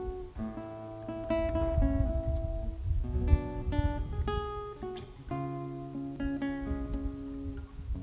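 Acoustic guitar played solo: chords and single notes plucked one after another and left to ring.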